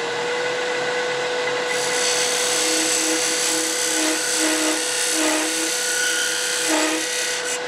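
Beading tool cutting a bead into a block of old mahogany spinning on a wood lathe. A steady high hiss of the cut starts about two seconds in and stops just before the end, over the lathe's steady hum.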